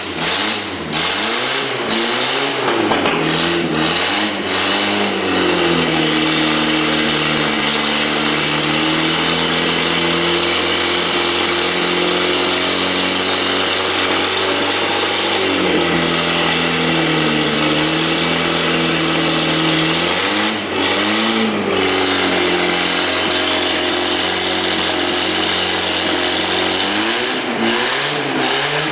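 Freshly rebuilt 1975 Volkswagen Passat four-cylinder engine running, mostly at a steady idle, with the revs raised and let fall several times: a few times in the first seconds, once around the middle, once about two-thirds through and again near the end. A few sharp clicks sound in the first few seconds.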